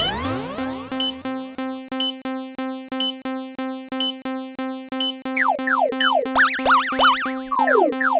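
Synthesized, cartoonish railroad-crossing warning bell ringing in an even rhythm over steady tones. About five seconds in, repeated falling whistle-like sweeps join it.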